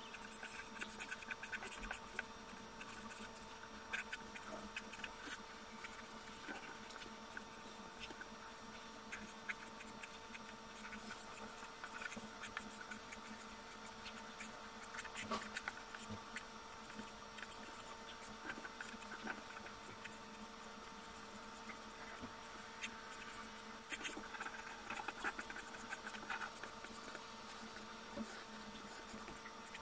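Charcoal pencil scratching and tapping on drawing paper in short, irregular sketching strokes. Faint, over a low steady hum.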